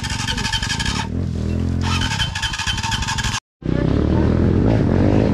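Dirt bike engine running on the trail. The sound cuts out completely for a moment about three and a half seconds in, then the engine carries on.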